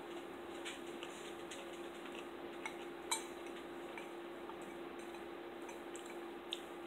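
Spoons tapping and clinking against soup bowls in scattered small clicks, one sharper clink about three seconds in, over a steady low hum.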